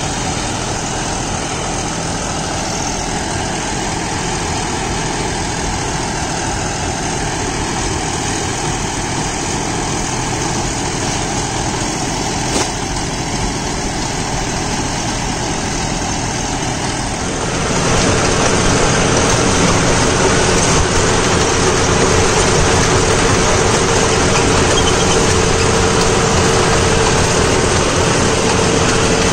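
John Deere 5405 CRDI tractor engine running steadily under load, driving a Shaktiman Tusker rotary tiller that chops banana stalks; it runs freely, without strain. About 17 seconds in the sound gets louder and a steady hum comes in.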